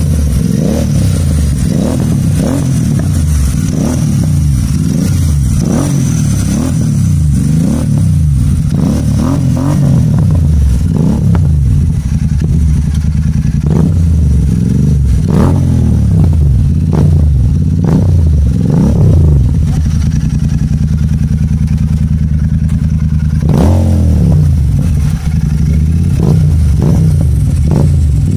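Royal Enfield Super Meteor 650's 648 cc parallel-twin running loud through an aftermarket Gursewak exhaust. The throttle is blipped over and over, the revs rising and falling, with a steadier stretch and one big rev near the end, and sharp crackles from the exhaust as the revs drop.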